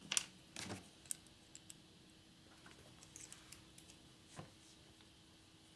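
Irregular light clicks and clinks of small metal parts and hand tools being handled on a workbench, the sharpest near the start, over a faint steady hum.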